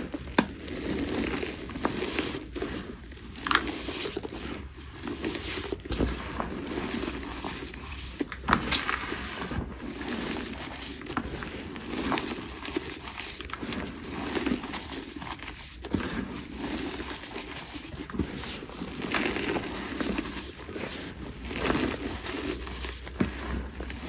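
Gym chalk crushed and crumbled between bare hands: a dusty crunching that swells with each squeeze, with a few sharp crackles as pieces snap.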